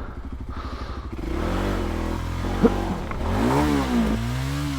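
Voge 300 Rally's single-cylinder engine ticking over, then revved up and down in several blips from about a second in as the bike is manoeuvred. A single sharp knock about two and a half seconds in.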